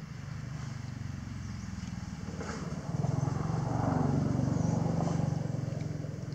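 A motor vehicle's engine passing by off-screen, growing louder about three seconds in and fading again near the end.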